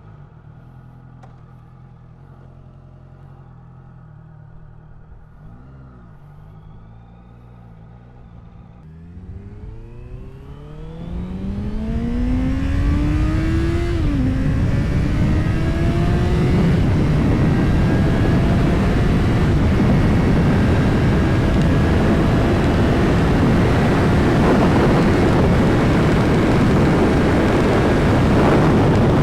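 Honda CBR650F inline-four with an Ixil aftermarket exhaust idling steadily, then revving up as the bike pulls away after about nine seconds. The pitch climbs, drops at a gear change about fourteen seconds in, and climbs again. At speed the wind rushing over the microphone all but covers the engine.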